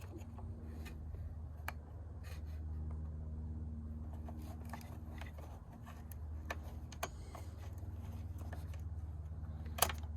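Faint small clicks and scrapes of a screwdriver working the Torx-headed self-tapping screw and prying out a car's door courtesy light switch, with a sharper click near the end, over a steady low hum.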